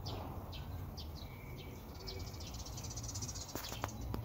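Quiet room background: a low steady hum with faint, short high-pitched chirps scattered through it and a few soft clicks near the end.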